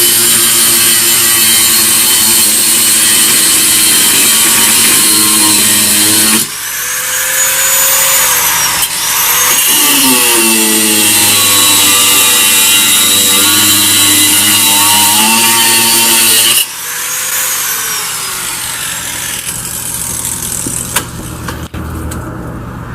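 Angle grinder cutting down steel bolts: it runs loud and steady, spins down about six seconds in, spins back up and cuts again, then is switched off and winds down about seventeen seconds in.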